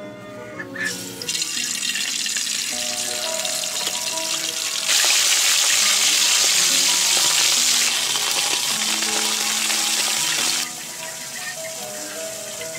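Small whole fish frying in bubbling oil in a wok, a steady sizzle that is loudest for a few seconds in the middle and drops off sharply about two seconds before the end. Background music plays throughout.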